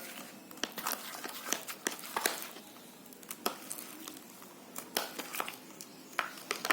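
Glue-and-activator slime being stirred, still sticky: irregular soft crackles, squelches and light clicks.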